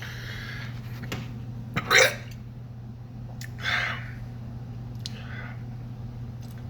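A man hiccuping from the burn of a ghost pepper (heat hiccups), a few short hiccups with the sharpest about two seconds in. A steady low hum runs underneath.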